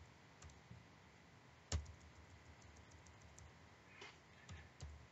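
A few scattered keystrokes on a computer keyboard, with one sharper key press nearly two seconds in, over quiet room tone.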